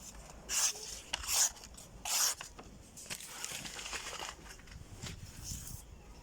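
Small folding knife being handled or used: three short scraping sounds in the first two and a half seconds, then softer rubbing and scraping.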